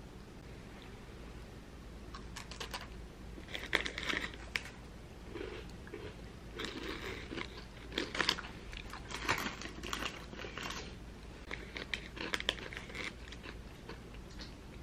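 Crunching and chewing of a crisp animal-shaped biscuit, with the foil snack bag crinkling in the hand. The crunches come in irregular bursts, starting about two seconds in.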